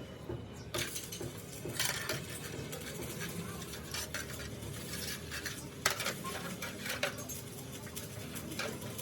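Irregular metallic clinks and knocks of steel tools and parts being handled, over a steady low hum.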